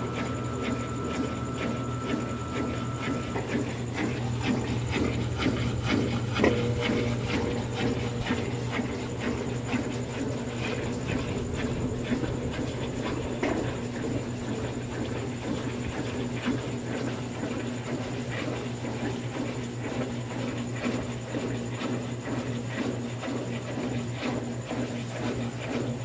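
Electrolux top-loading washing machine spinning its basket of wet bed sheets: a steady motor hum with many small ticks, a little louder about six seconds in.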